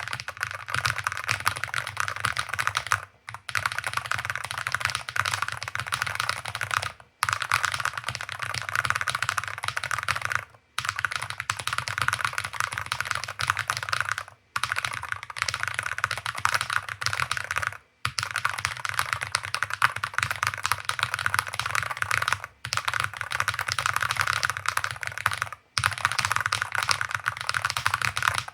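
Very fast typing on a Rainy75 RT Pro keyboard with Gateron Jade Pro magnetic linear switches on the letter keys: a dense stream of keystrokes, broken by brief pauses every three to four seconds.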